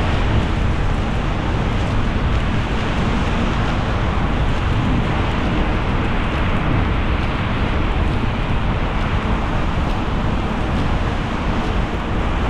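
Steady road noise from a car driving on a rain-wet road: tyre hiss on wet pavement over a low rumble.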